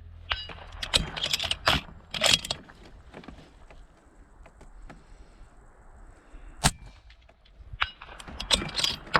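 Suppressed 6mm Creedmoor Howa 1500 bolt-action rifle: the bolt is worked with a flurry of metallic clacks and clicks early on, one sharp suppressed shot comes about two-thirds of the way through, and the bolt is cycled again near the end.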